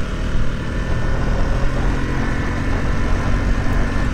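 Sport motorcycle engine pulling steadily in third gear as the bike speeds up, its note rising slightly, under a heavy rumble of wind over the helmet-mounted microphone.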